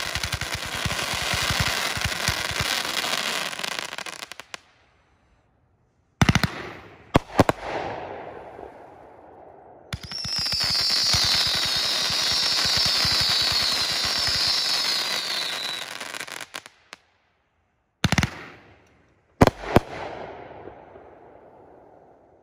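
Black Sunshine multi-shot aerial firework cake firing. It opens with a rapid volley of shots and crackle lasting about four seconds, then after a short pause single sharp bangs. A long steady crackling hiss runs from about ten to sixteen seconds in, and two more sharp bangs near the end fade away.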